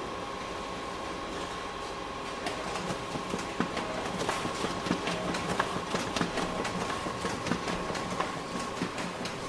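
Photocopier running: a steady hum with a thin held whine, under irregular mechanical clicks and clatter that grow busier about two and a half seconds in.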